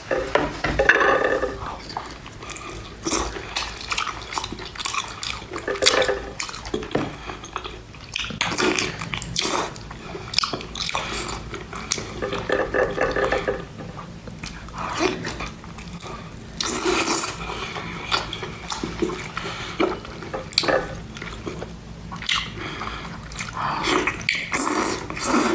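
Wet, irregular eating sounds: chewing, slurping and juicy smacking of saucy seafood, with dripping.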